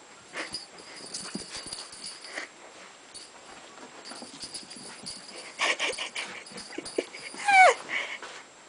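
Small puppy giving a short, high yip that falls sharply in pitch about three-quarters of the way through, among soft scuffling noises.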